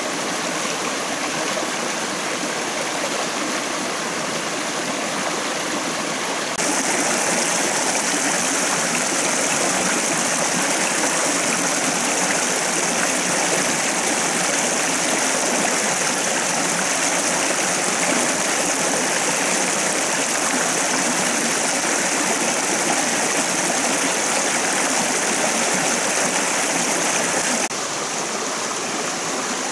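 A rocky stream rushing and splashing over stones, a steady flow of water. It grows louder about six seconds in and drops back near the end.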